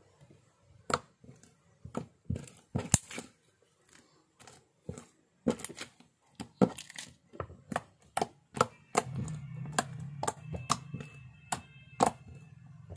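Glossy slime being stretched, poked and pressed by hand on a wooden table, giving irregular sharp wet clicks and pops. A steady low hum comes in about nine seconds in and runs underneath.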